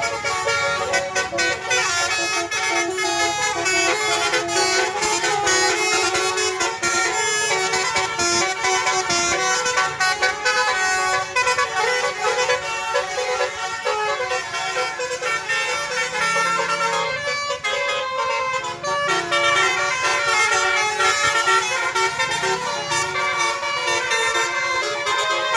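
Basuri telolet bus horn, a set of electric air horns playing a quick, jingling melody over and over, with a short break about two-thirds of the way through.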